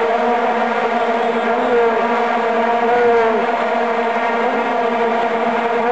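Stadium crowd blowing vuvuzelas: a loud, steady drone on one low note with its overtones, a few horns wavering and bending in pitch over it.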